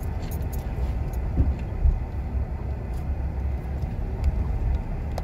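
Car rumbling steadily at low speed, road and engine noise heard from inside the cabin, with a few faint clicks and rattles.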